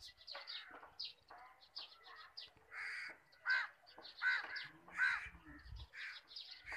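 Crows cawing: a string of short harsh caws, louder in the second half.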